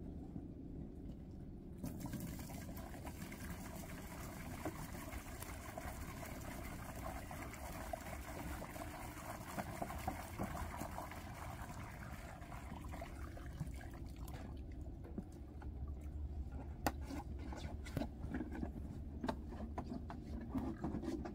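Water poured from a plastic jug into a rubber stock-watering bowl: a steady pour that starts about two seconds in and runs for roughly twelve seconds, followed by a few scattered knocks.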